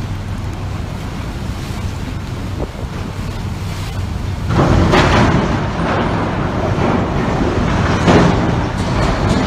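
Strong wind buffeting the microphone over a low rumble. About halfway through it turns louder and rougher, with several harsh surges, the loudest about three-quarters of the way in.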